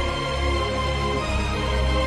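Soundtrack music with sustained notes held over a steady bass line.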